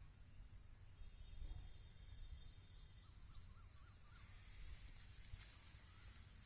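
Faint rural outdoor ambience: a steady high insect drone over a low rumble, with a brief wavering bird call about three seconds in.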